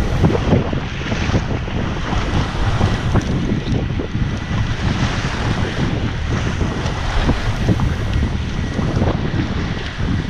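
Wind buffeting the microphone on a boat at sea, with rough waves washing against the hull in a steady, gusting rumble.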